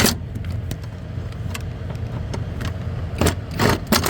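Low, steady hum of a truck's diesel engine running at idle. A sharp burst of noise comes right at the start, and a few short bursts come in quick succession about three seconds in, from work on the clutch switch housing screws.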